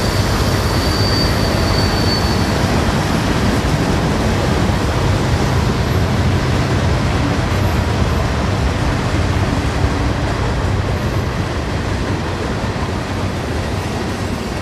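Model freight train rolling past on layout track: a steady rumble of wheels on rails, with a thin high squeal in the first couple of seconds. It fades a little near the end as the caboose goes by.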